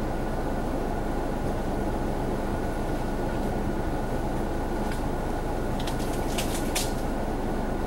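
A parked car idling, heard from inside the cabin as a steady drone with a constant hum. About six seconds in come a few short crackles.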